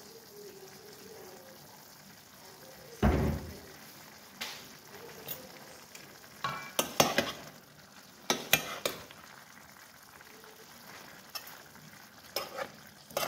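Chicken liver and vegetables sizzling faintly in a stainless steel frying pan, broken by sharp clinks and knocks: a heavier thump about three seconds in, clusters in the middle, and a metal spoon scraping and clinking against the pan near the end as the food is stirred.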